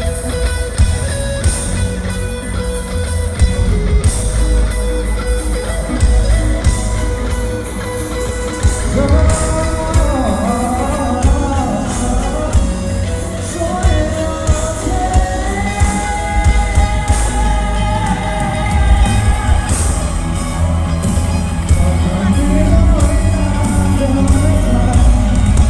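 A live rock band playing loudly: drums, bass and guitar, with a singing voice coming in about nine seconds in.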